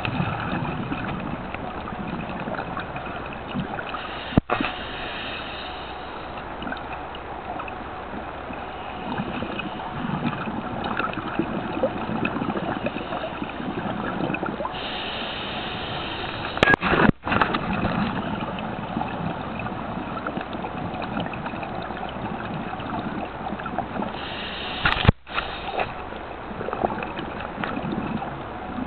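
Underwater noise through a camera housing: a continuous gurgling wash of scuba bubbles and water movement, with a louder hiss of exhaled bubbles now and then. Three sharp knocks come about four seconds in, past halfway and near the end.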